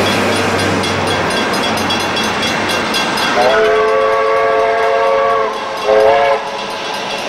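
New Zealand Railways J class 4-8-2 steam locomotive J 1234 running with a passenger train, with a steady rumble of exhaust and wheels. About halfway in, its chime whistle gives one long blast of about two seconds, then a short blast.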